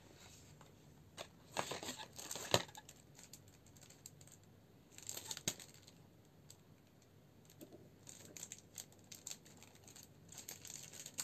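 Cardboard phone box and plastic packaging being handled: irregular rustling and light taps in several short bursts, with a sharp click about two and a half seconds in.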